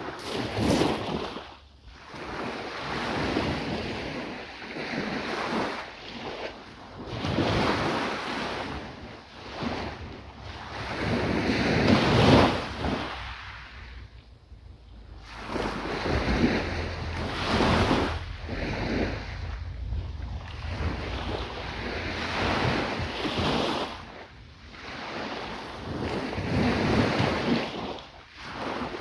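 Waves breaking and washing up a beach, rising and falling every few seconds, with wind buffeting the microphone.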